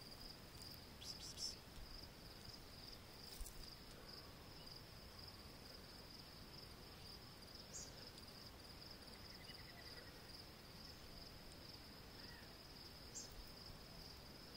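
Near silence with a faint, steady high-pitched insect trill, like crickets, running throughout, and a few soft clicks.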